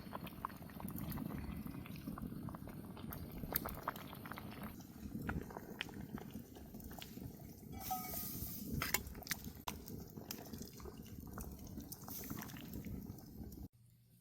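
Cat eating, crunching and chewing its food with many small clicks over a low rustle; the sound cuts off suddenly near the end.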